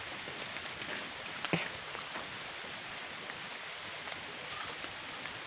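Steady hiss of light drizzle falling, with scattered small ticks and one sharper tap about one and a half seconds in.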